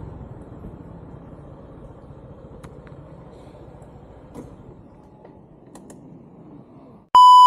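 Faint low background noise with a few soft clicks, then near the end a loud, steady, high electronic beep that cuts in suddenly and holds for under a second.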